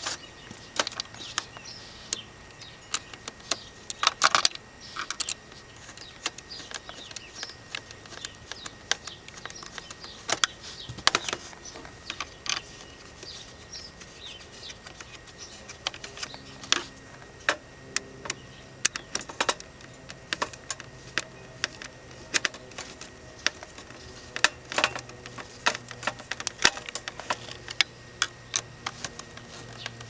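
Irregular small clicks, taps and rattles of hard plastic and metal parts handled by hand: the climate control panel of a 2001 Honda Civic being worked on.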